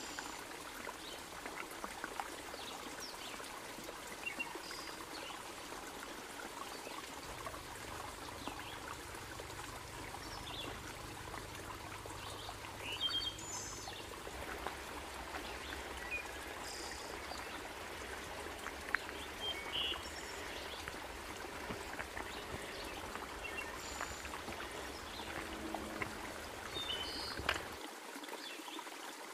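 Shallow rocky creek trickling and babbling over stones, a steady water sound, with scattered short high chirps.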